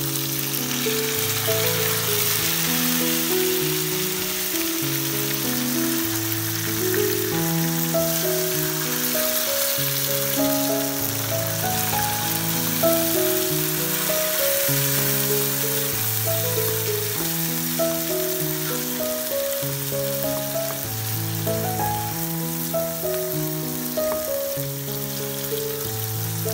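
Instrumental background music with a slow melody of held notes, over the steady sizzle of chopped tomatoes and onions frying in oil in a pot.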